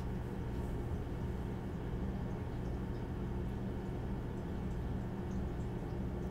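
Steady low hum with faint hiss: background room tone with no distinct events.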